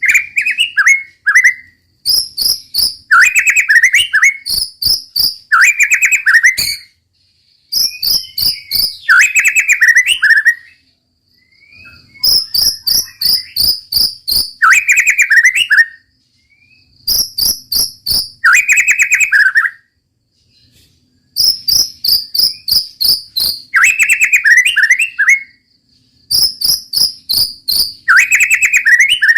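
White-rumped shama singing loud rapid-fire 'tembak' rolls: bursts of fast clicking, chattering notes, each phrase two to three seconds long, repeated after short pauses.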